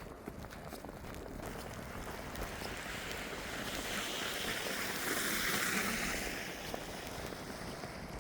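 A vehicle passing on a slushy snow-covered street: a tyre hiss that swells, peaks about halfway through and fades away.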